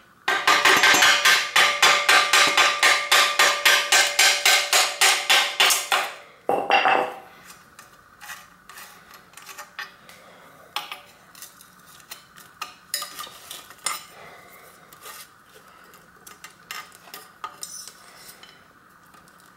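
Metal tools on a bicycle bottom bracket: a rapid, even run of ringing metal clinks, about five a second, for around six seconds as a hook spanner works the lockring off. A single louder clank follows, then scattered lighter clicks as the cup and spindle come out.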